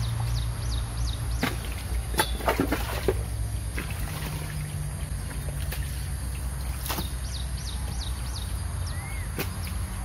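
A hoe digging wet ditch mud and dumping it into a wheelbarrow: a cluster of wet knocks and thuds about two to three seconds in, then single chopping knocks later. Birds chirp now and then, and a low steady hum runs underneath.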